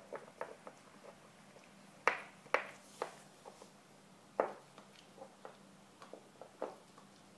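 Pembroke Welsh Corgi puppy gnawing a hard hoof chew: irregular sharp clicks and knocks of teeth on hoof, a few louder ones and fainter ticks between.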